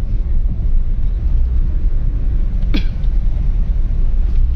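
A car driving slowly, heard from inside the cabin: a steady low engine and road rumble. A brief high squeak cuts across it about three seconds in.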